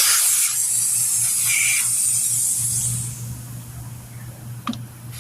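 Compressed air hissing loudly through the tire's valve stem, which has its valve core out after seating the bead. The hiss starts suddenly and tapers off after about three seconds.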